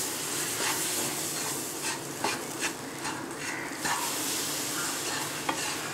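A spatula stirring and scraping a crumbly wheat-flour and jaggery mixture in a hot nonstick pan, over a steady sizzle as milk is poured in, with short scrapes every second or so. Milk is going in little by little so that the roasted flour thickens into a dough that can be rolled into ladoos.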